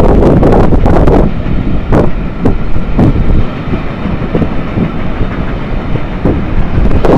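Train of passenger coaches passing close by: a steady rumble with wheels knocking over the rail joints every half second to a second.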